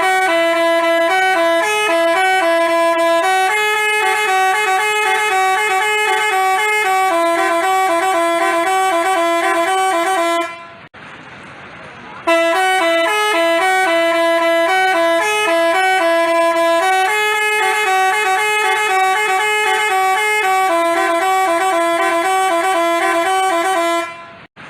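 Telolet basuri bus horn, a multi-tone horn, playing a melody of stepped, held notes. The same tune plays twice, with a pause of about two seconds near the middle.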